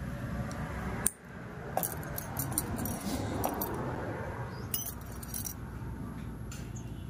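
Stainless steel nail nippers and pedicure tools clicking and clinking, a handful of sharp metal clicks, the strongest about a second in, over a steady low rumble.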